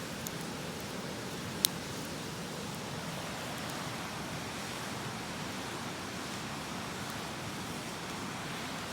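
Steady rush of river water and wind, with a wood campfire crackling faintly and giving one sharp pop about a second and a half in.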